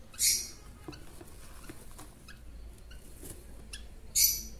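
Rosy-faced lovebird chicks giving short, harsh, high squeaks, the begging calls of hand-fed chicks, once just after the start and again near the end. Faint light ticks come in between.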